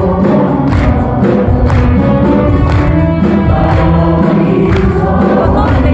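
Live music: many voices singing together over band accompaniment with a steady beat.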